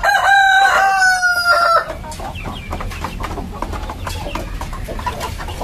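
A rooster crows once: one long held note that falls slightly and stops about two seconds in. After it, a flock of chickens keeps up a busy clucking.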